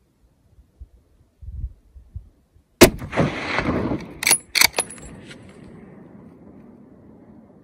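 A single hunting-rifle shot, a sharp crack about three seconds in, with the report rolling and echoing down the mountain valley and fading slowly. About one and a half seconds after the shot come a few quick metallic clicks and clacks, the rifle's bolt being worked.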